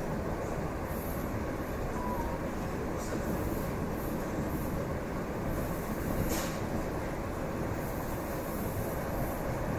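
EP2D electric multiple unit running along the track, heard from inside the train: a steady rumble of wheels and running gear, with a brief hiss about six seconds in.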